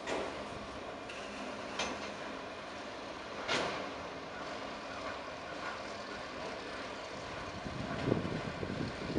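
Freight train of autorack cars rolling past: a steady rolling rumble, with three brief sharp knocks in the first four seconds and heavier, uneven rumbling near the end.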